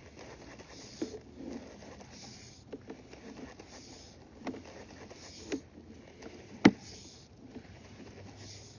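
Sewer inspection camera gear being worked through a cleanout: a few scattered knocks and clicks over a low hiss, with one sharper knock about two-thirds of the way through.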